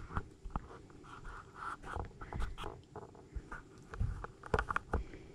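Raccoons moving and feeding at food bowls: scattered scratching and clicking. A few louder knocks come about four seconds in, as one raccoon climbs onto the cloth-covered table.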